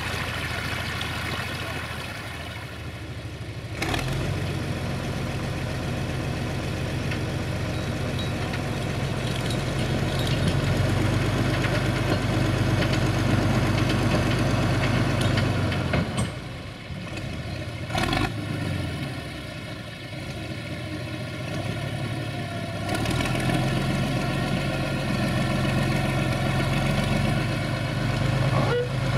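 SAME Laser 110 tractor's diesel engine running steadily under load as it skids a bundle of logs on its forestry winch. For the first four seconds a stream rushes over rocks, with the engine fainter beneath it. The engine then comes in loud, dips for a few seconds around the middle and picks up again.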